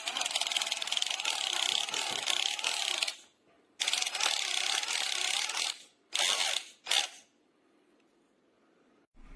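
Cordless power drill giving rapid mechanical ratcheting clicks in four bursts: a long one of about three seconds, a second of about two seconds, then two short ones.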